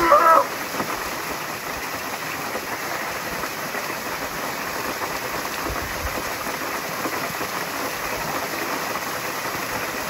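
A thin waterfall splashing steadily onto rock, an even rush of falling water. A brief shout of a man's voice sounds right at the start.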